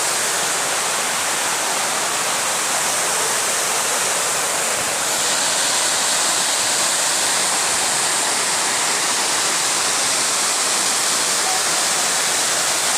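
Waterfall's water rushing: a steady, unbroken noise.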